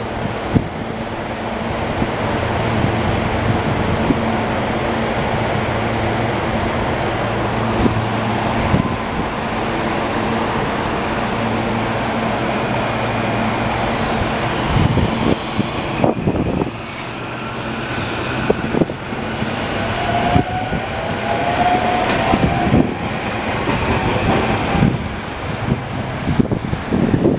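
SEPTA Silverliner V electric multiple-unit train pulling out of a station and accelerating away: a steady electrical hum while it stands, then wheels rolling on the rails with scattered clicks, and a slightly rising electric whine in the second half as it picks up speed.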